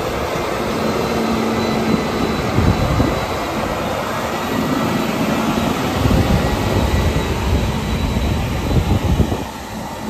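CLAAS Axion 930 Terra Trac tractor running under load as it pulls a seeding implement past at close range: a steady engine rumble mixed with the running noise of its tracks and the implement, easing off a little near the end.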